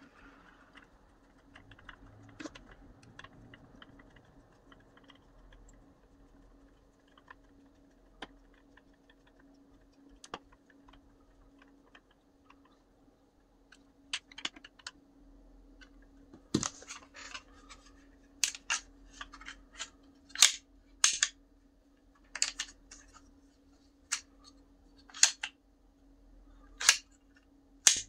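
Hand assembly of 3D-printed plastic parts: faint small ticks while a screwdriver turns a screw into the printed part, then from about halfway a string of loud, sharp plastic clicks and snaps at irregular spacing as the printed pieces are handled and pressed together.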